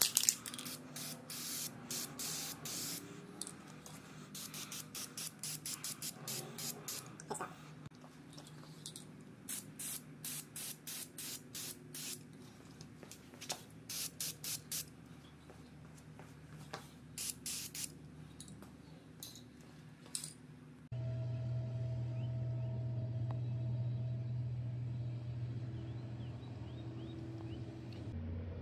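Aerosol spray-paint can spraying black paint onto a cast-iron hand-plane body in many short bursts, with a faint steady hum underneath. About two-thirds of the way through, the spraying stops abruptly and a louder steady low hum takes over.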